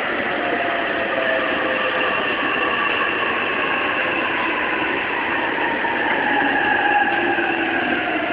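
Running sound inside the motor car of a JR East E233-3000 electric train: the Hitachi IGBT VVVF inverter and traction motors whine, with several tones slowly falling in pitch over a steady rumble of wheels on rail as the train slows along a station platform.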